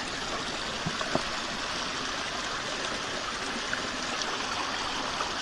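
Small rocky mountain stream running and trickling over stones in a steady rush, with a couple of faint taps about a second in.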